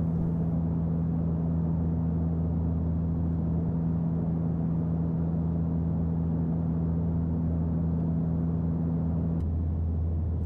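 Airliner cabin noise in flight: a steady engine drone with a low rumble and two held hum tones, one of which drops out near the end.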